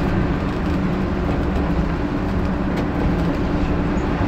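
Class 121 diesel railcar running steadily along the line, heard from the driving cab: a steady engine drone over rumbling wheel and rail noise, with a few faint clicks.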